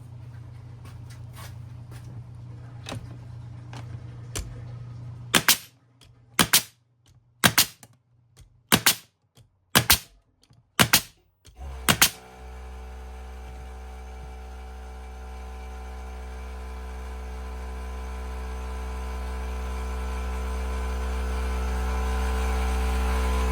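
Pneumatic Bostitch angled finish nailer driving 2-inch nails into a board: about eight sharp shots, roughly one a second. Right after the last shot, the Bauer 1.6-gallon cordless air compressor kicks on to refill its tank, running steadily and growing louder.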